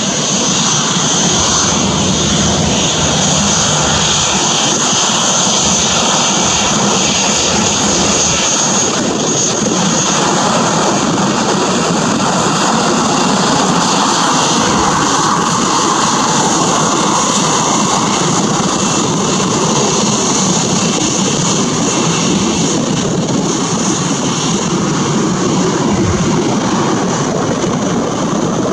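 Boeing 737-800's twin CFM56-7B turbofan engines running at taxi power: a steady high-pitched whine over a continuous rushing noise.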